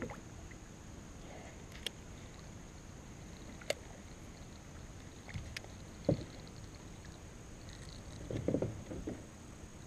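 Light water sounds around a kayak, with a few sharp clicks and knocks, then a short bout of splashing a little after eight seconds in as a hooked largemouth bass is grabbed by hand at the side of the boat.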